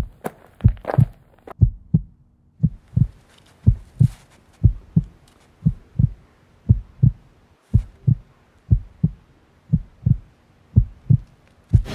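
Heartbeat sound effect: regular low thumps, about two a second, in a lub-dub rhythm, over a faint steady hum.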